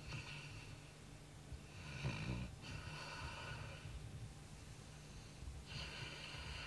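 Sleeping Labrador retriever snoring, with slow, noisy breaths a few seconds apart: a snore about two seconds in and a long hissing breath near the end.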